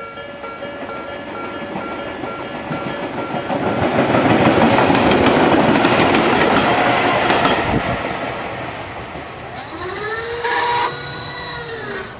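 Level-crossing warning bell ringing with a steady repeating beat, which stops about two seconds in; then a Tobu 8000 series two-car electric train passes, its wheels and running noise rising to a loud rush and fading away. Near the end a pitched tone glides up, holds and glides down, with a brief louder spot in the middle.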